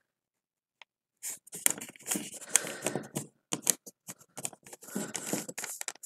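A sheet of origami paper being folded and creased by hand: a quick run of short crinkles, rustles and scrapes, starting about a second in.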